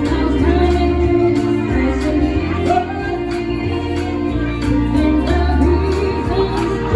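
A song: a voice singing over a band with a bass line and a steady beat.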